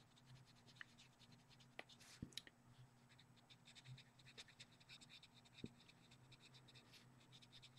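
Very faint scratching of a pastel pencil shading on paper in quick short strokes, over a faint steady low hum.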